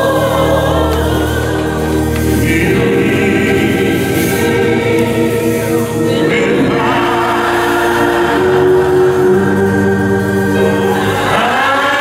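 Gospel choir singing, holding long chords that change every few seconds.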